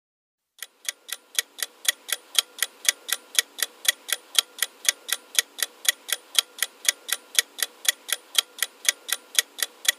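Clock-ticking countdown timer sound effect, an even run of about four ticks a second starting just under a second in, counting down the time to answer a quiz question.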